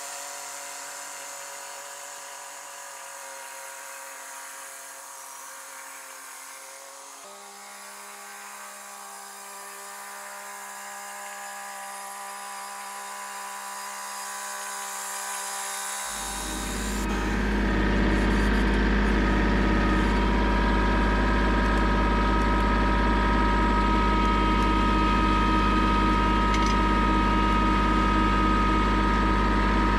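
Compact farm tractor's engine running steadily, heard close up from the seat. It comes in loud with a deep steady hum about halfway through. Before that there is a quieter sound of steady held tones that all change pitch together once.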